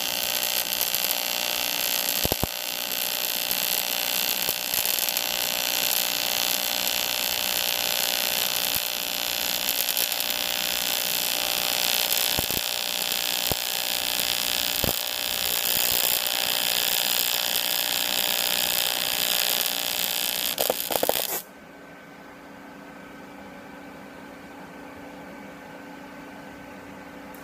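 AC TIG welding arc on aluminum from an Everlast PowerTig 250EX, a steady loud buzzing hiss that cuts off suddenly about 21 seconds in when the arc is stopped, leaving a much quieter steady hum.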